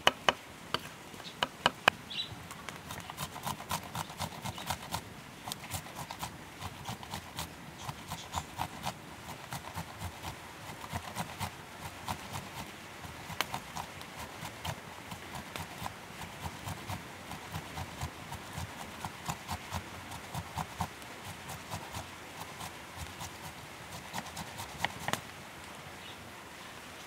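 A few sharp cleaver chops on a wooden cutting board, then from about three seconds in, a steady run of quick scraping strokes as a tomato is rubbed down a metal box grater into a bowl. The strokes stop shortly before the end.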